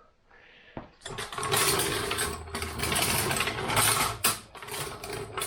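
A jack raising the lift from underneath: a steady mechanical running noise with rapid rattling, starting about a second in.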